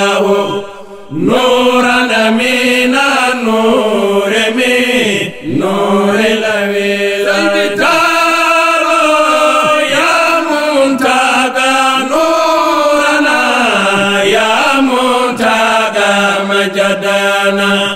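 Male voices chanting a devotional Islamic song, with short breaths about a second in and about five seconds in.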